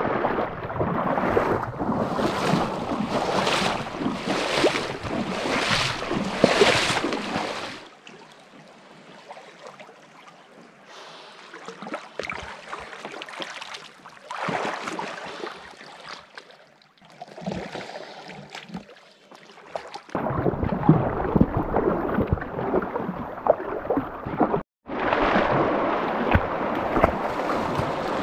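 Flowing river water with wind buffeting the microphone, in several stretches cut together. The middle stretch is quieter, and there is a sudden break near the end.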